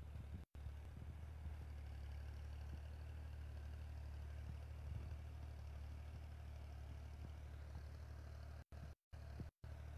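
Farm tractor's diesel engine running steadily under load, pulling a cultivator through tilled soil. The sound cuts out for an instant about half a second in and again a few times near the end.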